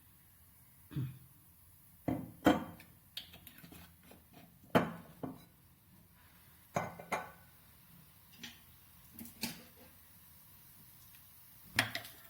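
Scattered clinks and knocks of cookware and utensils being handled at the stove, about ten short sharp sounds spaced irregularly with quiet between them.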